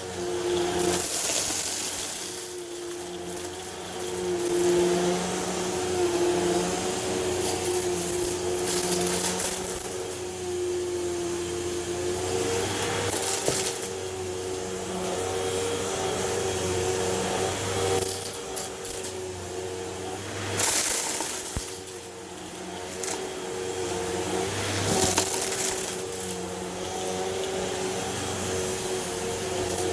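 Hoover Elite Rewind Plus upright vacuum cleaner running steadily, a motor hum under rushing air, with repeated surges of louder hissing every few seconds.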